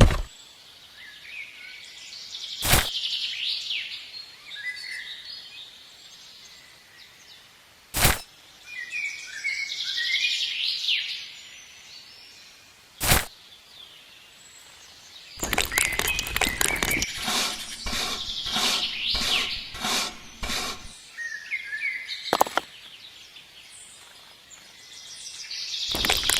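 Birds chirping and singing, broken by four sharp knocks several seconds apart and a run of rapid rattling clicks lasting about five seconds in the second half.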